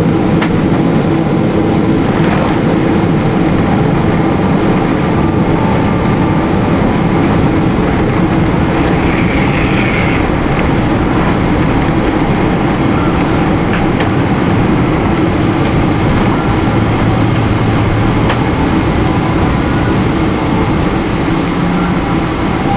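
Airliner's jet engines and runway rumble heard from inside the cabin during the landing rollout: a loud, steady noise that eases slightly near the end as the plane slows.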